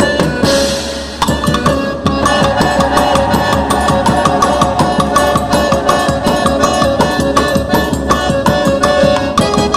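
Instrumental passage of festa junina quadrilha music: a fast, busy drum beat under sustained melody notes.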